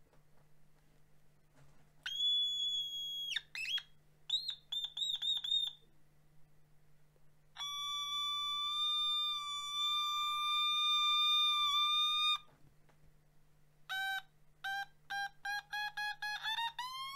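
Otamatone electronic synth toy played in pitched notes: a very high held note, a few quick short notes, then a long steady note with a slight wobble near its end. Near the end a run of short notes steps upward in pitch.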